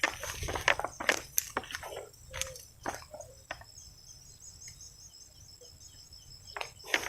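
Footsteps crunching and crackling through dry leaves and undergrowth, stopping about three and a half seconds in and starting again near the end. In the lull an insect chirps in a high, even rhythm, about five chirps a second.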